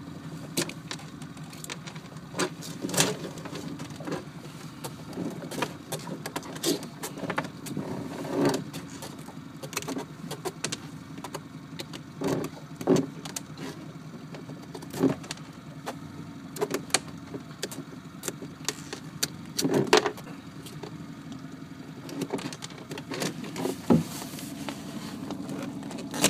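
A knife scraping and prying barnacles off a sea turtle's flippers and shell: scattered sharp clicks and scrapes over a steady low hum.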